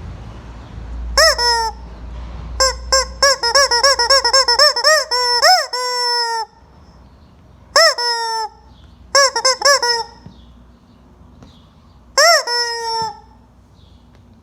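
Chicken cackling in five bursts of short rising-and-falling calls. The longest run goes through a quick series of short calls and ends in a longer drawn-out falling call.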